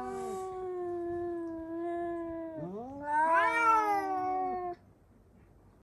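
Two domestic cats yowling at once in long, drawn-out calls, one voice lower than the other. A louder call rising in pitch starts about two and a half seconds in, and the yowling stops abruptly near the end.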